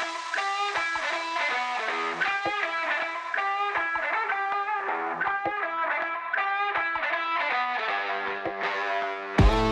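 Background music: an electric guitar plays a melody of quick, repeated plucked notes, with a heavy bass and beat coming in just before the end.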